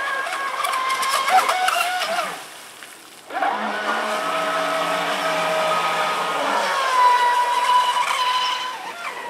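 Pro Boat Sonicwake RC boat's brushless electric motor whining at speed, its pitch wavering as the throttle changes. The whine cuts out a little after two seconds in and comes back on about a second later.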